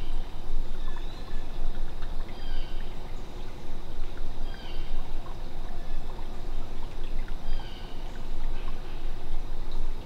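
A small stream running steadily, with a continuous trickling and pouring rush of water. Short high chirps recur every second or two over it.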